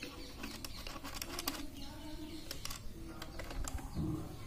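Faint, scattered clicks and small scrapes of a wire and a screwdriver being worked at the screw terminals of a switch board.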